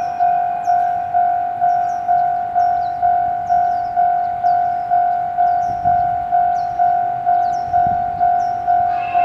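Japanese railway level-crossing warning bell ringing a steady, rapid ding-ding of one tone, about two strokes a second.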